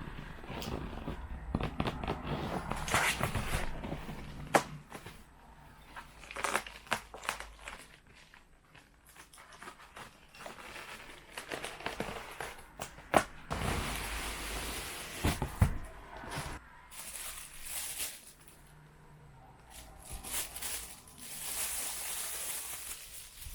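Packaging being handled and opened: crinkling and rustling, broken by scattered knocks and clicks.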